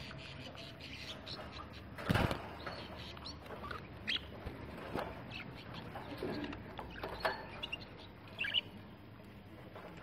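Budgerigars chirping in short, scattered calls, with a brief loud burst of wing-flapping about two seconds in.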